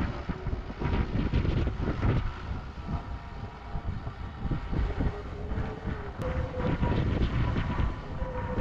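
Tractor engine running as it drives across a grassy slope, its pitch changing now and then, with wind buffeting the microphone.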